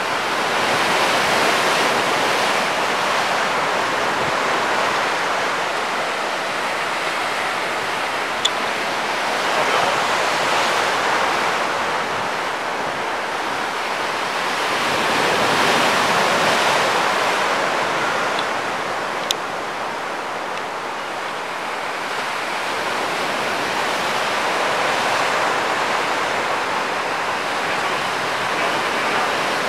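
Ocean surf breaking along the beach: a steady rushing wash that swells and fades every several seconds. Two brief clicks sound, about a third and about two-thirds of the way through.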